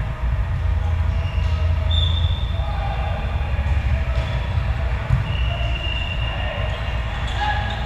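Sports-hall noise during an indoor volleyball rally: a steady low rumble, with athletic shoes squeaking on the court floor twice, briefly about two seconds in and for longer a little past halfway, and a few faint knocks.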